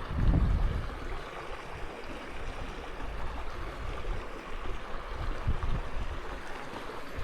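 Shallow river water running steadily, with a low rumble of wind on the microphone near the start.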